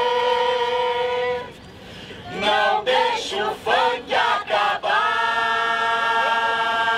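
A group of voices singing together in chorus. A long held note ends about a second and a half in, a quick run of short chanted syllables follows, then the voices hold another long note.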